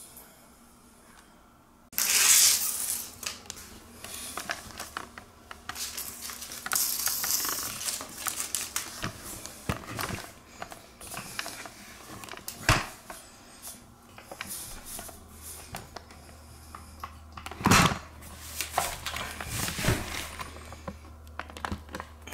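Red backing tape being peeled off the adhesive strip of a collapsible shower water dam, with crinkling of the plastic film and handling noise as the strip is pressed onto the tile floor. There are a few sharp knocks against the tile, the loudest about 13 and 18 seconds in.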